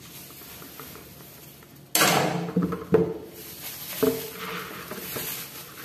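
Damp, hydrated bulgur wheat tipped from a white dish into a plastic mixing bowl: a sudden sliding rush about two seconds in, followed by two knocks of the dishes.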